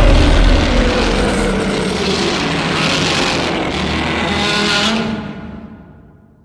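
A loud, rough sound effect with a deep rumble and shifting tones that fades away to silence over the last second and a half.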